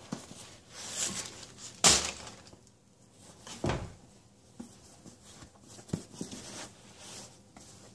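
Handling sounds of a pair of leather slippers being picked up and turned over by a cardboard box: soft rustles and a few dull knocks, the loudest about two seconds in and another a little before four seconds.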